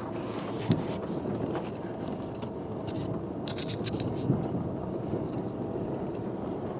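Car driving slowly over a rough, potholed road, heard from inside the cabin: a steady road and engine hum with a few light knocks from the bumps.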